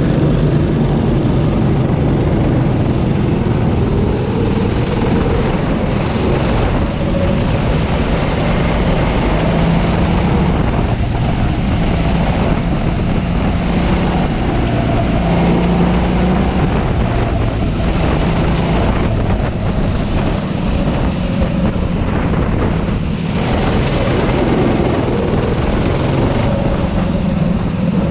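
Onboard sound of a racing kart's engine running hard, its pitch rising and falling as it speeds up and eases off, with other karts' engines close around it.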